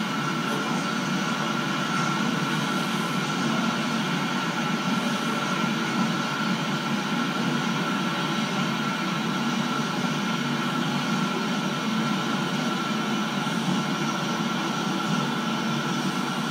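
Freight train's container flat wagons rolling steadily past: a continuous rumble of wheels on rails, with a steady high tone running above it.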